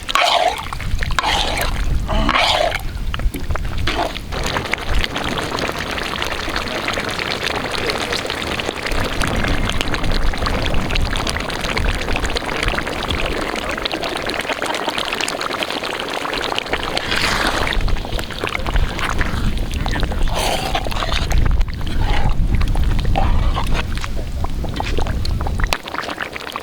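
Chicken coated in a cornflour and spice mix sizzling in a pot as it cooks: a steady hiss.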